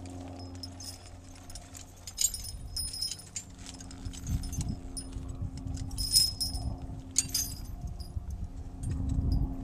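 Metal draft-horse harness and hitch hardware jingling and clinking in several short bursts, over a steady low hum and some low rumbling.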